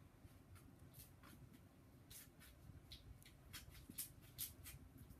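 Faint rustling and light clicks of a plastic drink sachet being handled, scattered and more frequent in the second half.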